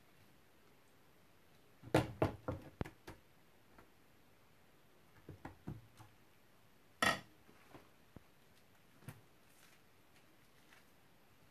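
Kitchen utensils and dishes knocking and clinking in a quiet room: a quick cluster about two seconds in, a few softer taps around five and a half seconds, and the sharpest single knock about seven seconds in.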